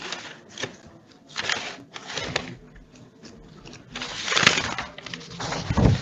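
Paper rustling as pages of a case file are handled and turned close to a microphone. There are short, scratchy rustles, with the loudest and longest one about four seconds in.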